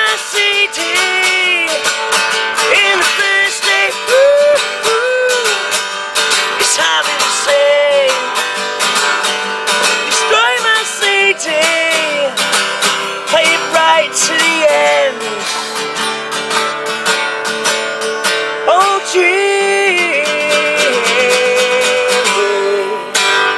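A man singing to his own strummed acoustic guitar, an original folk/country-rock song. The strumming and singing stop just at the end as the song finishes.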